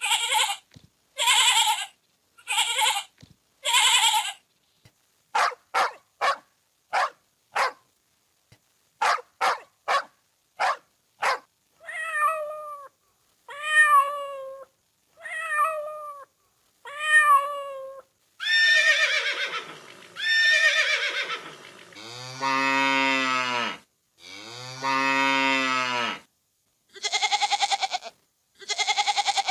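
A string of recorded farm-animal calls, each animal's call repeated a few times before the next one: among them falling, meow-like calls, two long low cow moos, and wavering goat bleats near the end.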